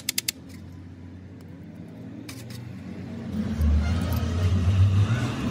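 A short burst of rapid mechanical clicking at the very start, then a low engine rumble that grows much louder a little past halfway.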